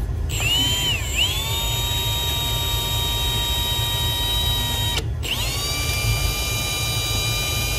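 Cordless drill spinning a fuel injector held in its chuck as a makeshift lathe while a tool is pressed against it to turn down the o-ring groove. The motor whine dips in pitch briefly about a second in, stops near five seconds, then spins back up and runs steady.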